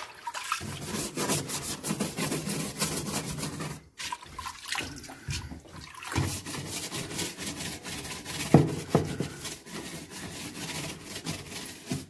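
Water sloshing and splashing in a washing machine tub as a hand swishes a wet sponge through it and scrubs the plastic tub rim, with a short break about four seconds in and a louder splash or knock past the middle.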